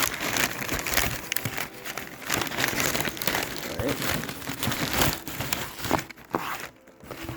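Protective packing wrapping being handled and pulled away, crinkling and rustling in irregular bursts, fading near the end.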